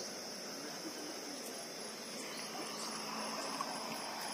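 Crickets trilling in a steady, high-pitched continuous chorus.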